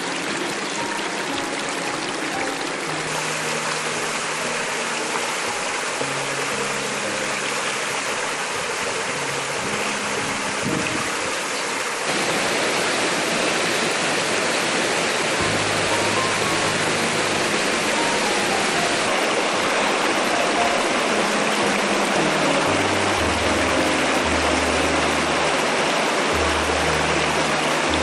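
Moorland waterfall, water rushing and splashing in a steady loud wash, louder from about twelve seconds in. Background music of slow, held low notes plays under it.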